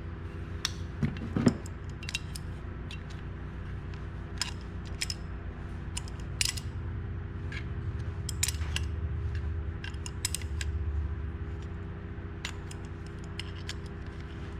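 Scattered light metal clicks and taps as a bearing puller's bolts are adjusted and snugged by hand on a chainsaw crankshaft, over a steady low hum.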